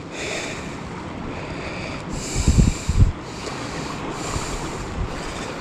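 Wind buffeting the microphone over steady surf hiss from waves on the rocks, with a cluster of low bumps from gusts about two and a half to three seconds in.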